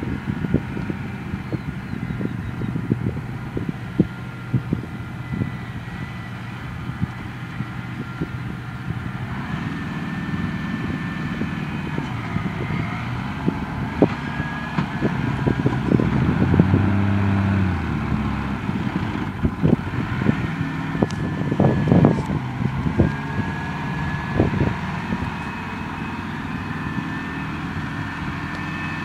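Tractor diesel engines working at a distance in a soft paddock while a stuck Case IH CVX130 is recovered, with whining tones that drift up and down. The engines get louder about 16 seconds in, and frequent crackles come from the microphone throughout.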